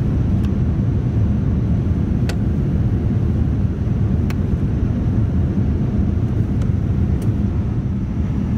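Steady roar of a Boeing 787-9 airliner cabin in flight, low-pitched and unchanging, with a few faint clicks scattered through it.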